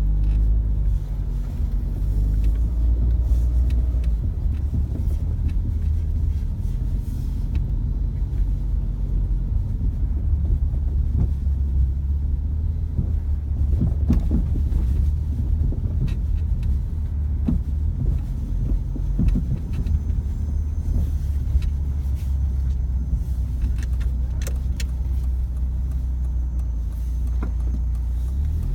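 Car driving with a steady low road and engine rumble, broken by scattered sharp knocks from the suspension, mostly around the middle and near the end. The knocking is the suspension knock under study in a setup with Asomi parts and SS20 Gold shock absorbers.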